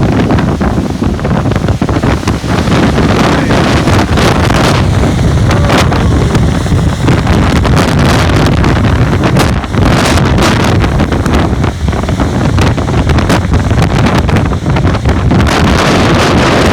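Strong windstorm gusts blowing hard and buffeting the microphone in a loud, continuous rushing roar that surges and eases, with scattered brief crackles.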